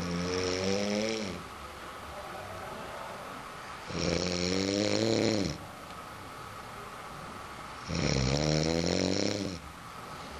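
A person snoring: three drawn-out, pitched snores about four seconds apart, each lasting about a second and a half.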